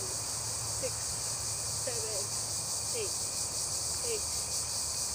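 Insects buzzing steadily in a high-pitched chorus. A short falling chirp repeats about once a second alongside it.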